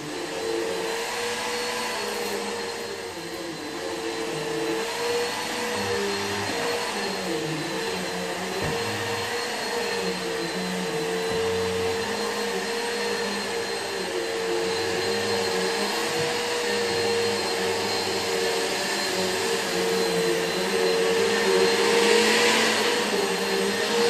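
Bissell PowerForce Helix bagless upright vacuum with an 8-amp motor, running steadily while vacuuming carpet. It holds one steady motor tone, and it grows louder and brighter a couple of seconds before the end as the machine comes closer.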